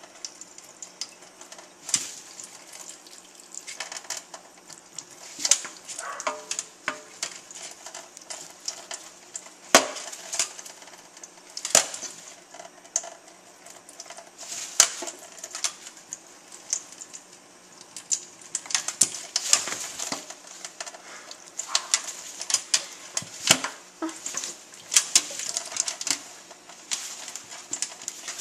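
Hyacinth macaw bathing under a running kitchen faucet in a stainless steel sink: a steady trickle of water with irregular splashes and sharp clicks throughout.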